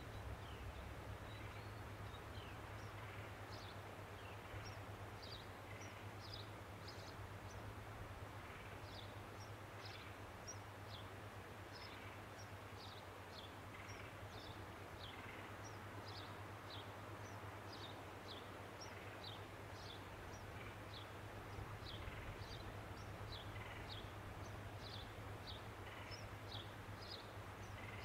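Small birds calling with many short, high chirps, faint and scattered, over a steady hiss and a constant low hum.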